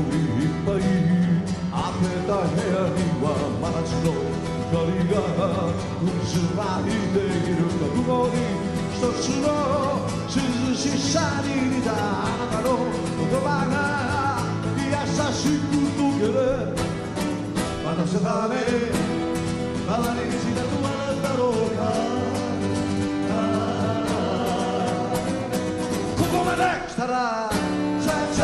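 Live band music: a man sings lead into a microphone over strummed guitars and a full band backing. The music drops out briefly near the end, then picks up again.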